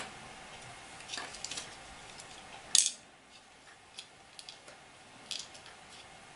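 Small plastic clicks and taps from fingers handling and prying at the black plastic case of a quartz clock movement, with one sharp, louder click near the middle.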